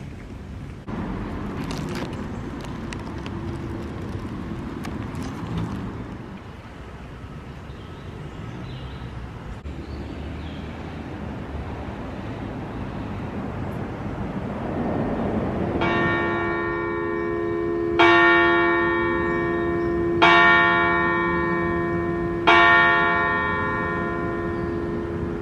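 Church bell striking four times, about two seconds apart, each stroke ringing on and fading, the first softer than the rest; a steady background hum runs beneath it.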